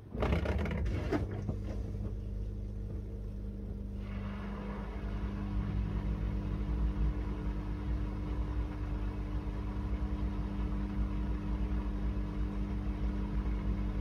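Miele W1 front-loading washing machine running: a sudden noisy start, then a steady mechanical hum with a higher hiss joining about four seconds in.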